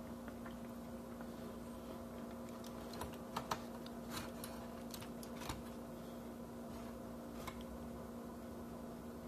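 Scattered small clicks and crackles of fingers picking apart a red snapper wrapped in banana leaf, with leaf and foil on a plastic tray; the sharpest pair comes about three and a half seconds in. A steady low hum runs underneath.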